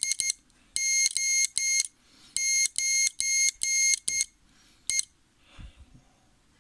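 Buzzer of a homemade ATtiny Morse trainer sounding hand-keyed Morse code at about 11 to 13 words per minute, a high-pitched beep switched into dahs and dits. It sends the letters O, 9 and E of a callsign: three dahs, then four dahs and a dit, then a single dit.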